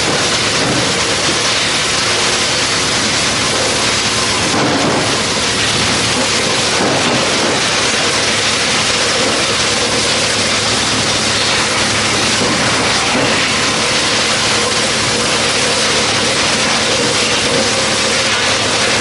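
Drum wood chipper running: a loud, steady noise with a faint hum underneath.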